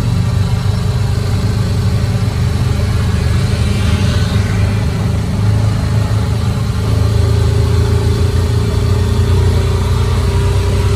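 Motor vehicle engine running steadily, with a steady higher hum joining about seven seconds in.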